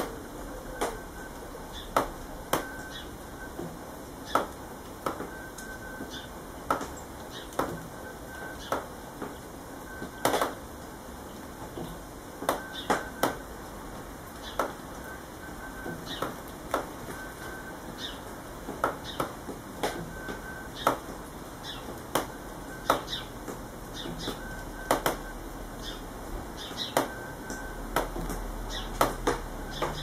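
Sharp, irregular clicks, roughly one a second, from a house sparrow's beak pecking seed at the port of a plastic tube feeder.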